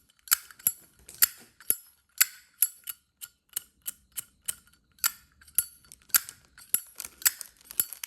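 Zippo lighter lid flicked open and snapped shut over and over, about three sharp metallic clicks a second. The click is a Zippo 205's, which the seller rates as only so-so.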